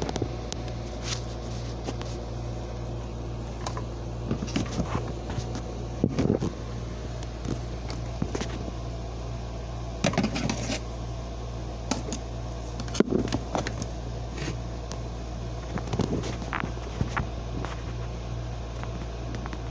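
Steady low hum, with scattered clicks and knocks of a phone camera being handled and moved.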